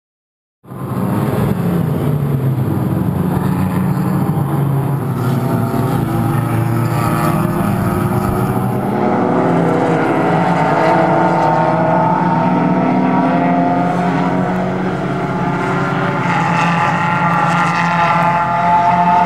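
Several Suzuki Swift race cars running at racing speed, their overlapping engine notes rising and falling with gear changes as they go through the corners. The sound starts abruptly about a second in, out of silence.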